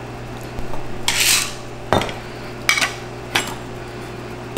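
Stainless steel cocktail shaker parts clinking and knocking as the metal cap is picked up and handled: a short rustle, then three separate sharp metallic knocks.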